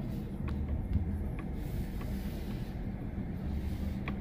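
Vehicle cabin noise while driving slowly on a sand track: a steady low engine and road drone, with a few short clicks from the vehicle jolting over ruts.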